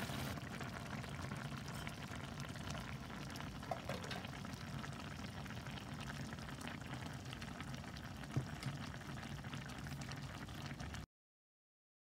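Tomato sauce with parrot fish boiling in a frying pan: a steady bubbling and popping, with a couple of louder clicks, cut off abruptly near the end.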